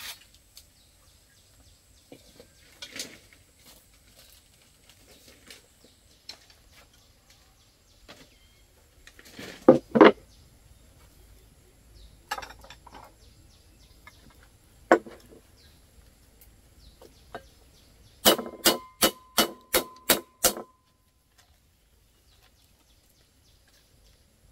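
Kitchen clatter of cookware and utensils: scattered sharp knocks, then a quick run of about eight strikes, some of them ringing briefly like metal.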